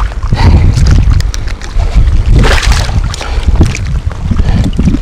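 Wind buffeting the microphone in a loud low rumble, over a pike's splashing as it thrashes at the surface while being landed by hand, with a bigger splash around the middle.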